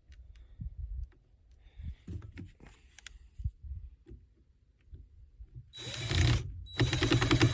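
Light handling clicks and knocks, then a power drill driving Phillips screws into PVC pipe in two short runs near the end, its motor whining.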